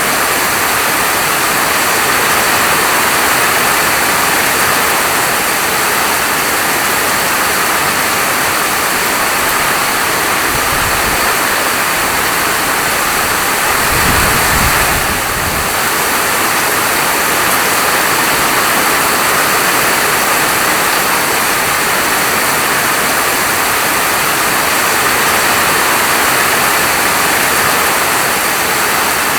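Steady heavy rain falling, an even hiss, with two brief low rumbles near the middle.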